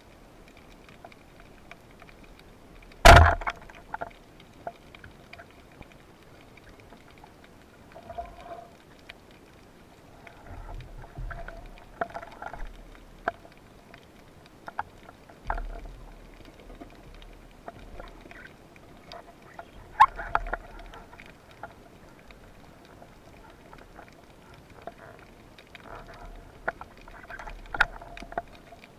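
Underwater sound from a band-powered carbon speargun: one loud sharp crack about three seconds in as the speargun fires. It is followed by scattered knocks, clicks and low rumbles from the shaft, line and struggling fish being handled, over a faint steady hum.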